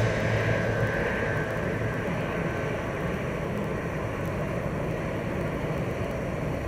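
Steady rumble of jet airliner engines across an airport apron, a broad noise with no clear tone. The last of a piece of music fades out in the first second.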